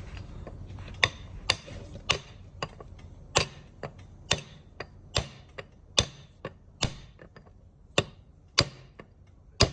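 Sharp metallic clicks from hand-tool work on a vehicle differential, about two a second at uneven spacing, some clearly louder than others.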